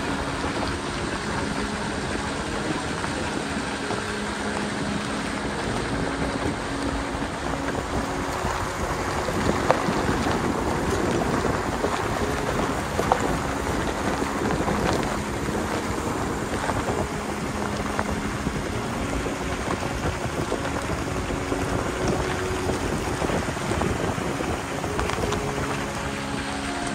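Nissan Patrol Y60's swapped-in BMW M57 straight-six turbodiesel running steadily under way, with a constant rushing rumble of the drive over it. Two sharp knocks come about ten and thirteen seconds in.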